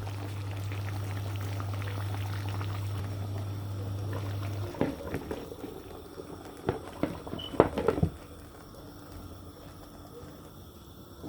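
Coca-Cola and flour sauce bubbling at a simmer in a pan. A steady low hum stops about halfway through, followed by a few sharp knocks over the next few seconds.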